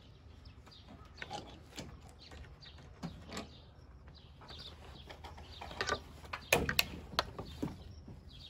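Scattered metallic clicks and knocks of retractable shade hardware: clip hooks snapping onto the tensioned steel cable and the fabric being worked along it. The sharpest clicks come a little past the middle.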